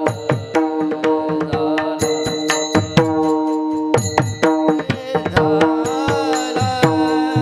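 Mridang (pakhawaj) drumming a fast rhythm, its bass strokes sliding down in pitch, over steady held notes and bright metallic ringing in devotional kirtan accompaniment.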